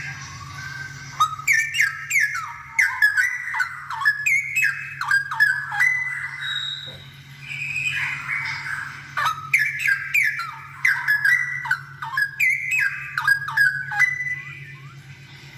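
Straw-headed bulbul singing, with rapid, loud, liquid warbling phrases in two bouts and a brief pause about seven seconds in.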